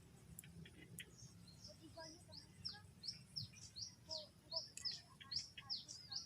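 A small bird calling with a fast run of short, high chirps, each sweeping downward, about three a second, starting about a second and a half in.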